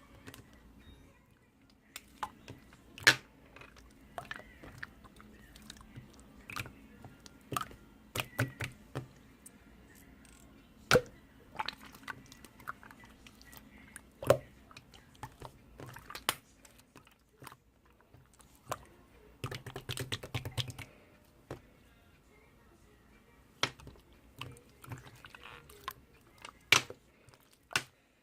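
Slime being squeezed and pressed by hand, making irregular sticky pops and clicks, with a rapid run of pops about twenty seconds in.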